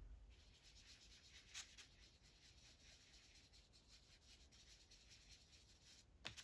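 Faint rubbing of a sponge applicator tool working PanPastel onto paper in short, repeated strokes, with a sharp tap near the end.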